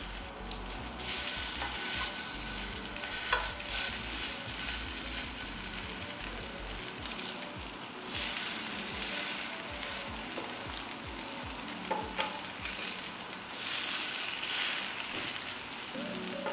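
Small tofu-and-Spam patties sizzling steadily as they pan-fry in oil over low heat. A few light clicks of wooden utensils against the pan come through as they are turned.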